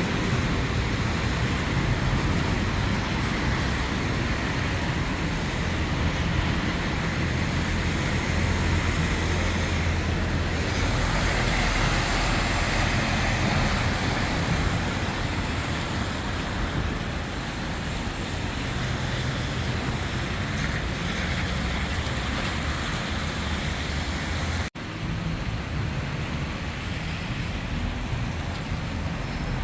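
Steady road traffic noise with a low wind rumble on the microphone, dipping momentarily about 25 seconds in.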